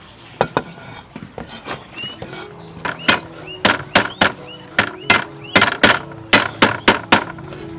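Kitchen knife slicing garlic on a round wooden chopping board: sharp knocks of the blade on the wood, a few scattered ones at first, then a steady run of about two to three a second from about three seconds in.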